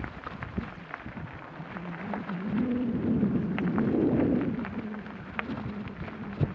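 Mountain bike rolling slowly along a rutted dirt track: scattered knocks and rattles from the bike and tyres over a low rumble that swells and fades around the middle.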